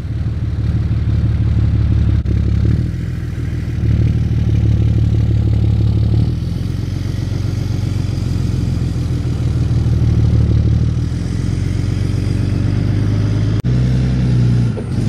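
Truck engine running at low revs while the truck is driven a short distance, its note rising and falling a few times with the throttle.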